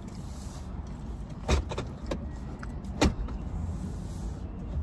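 Steady low rumble of a car's cabin, with two sharp clicks about a second and a half apart.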